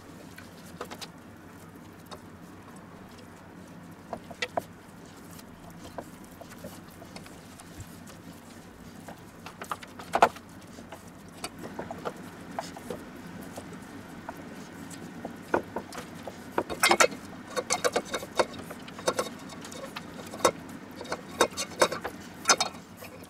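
Hands layering raw marinated pork slices and onion rings into a clay Römertopf: soft wet squishing and rustling with scattered light clicks, busier in the last several seconds, over a faint steady hum.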